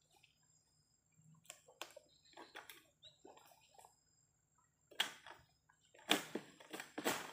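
An oil palm harvesting sickle (egrek) on a long pole works at the palm's fronds: scattered rustling and clicking, then sharp cracks about five and six seconds in as the blade is pulled down to cut.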